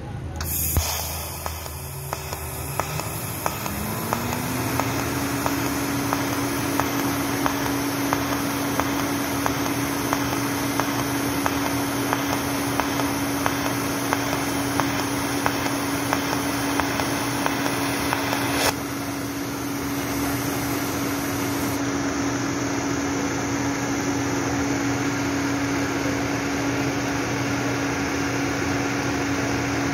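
Pulsed TIG arc from a Miller Maxstar 350 welder, ticking in a regular rhythm about twice a second, with a steady hum that rises in pitch over the first few seconds and then holds, likely the machine's cooling fan spinning up. The pulsing stops with a click about two-thirds of the way through as the arc is broken, while the steady hum runs on.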